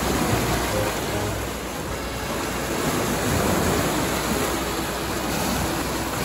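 Sea waves washing against a rocky shore, swelling about halfway through.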